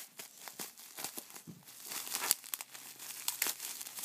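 Plastic bubble-wrap packaging crinkling and crackling as it is handled and cut open with scissors, in irregular short crackles and clicks, the sharpest snap a little past two seconds in.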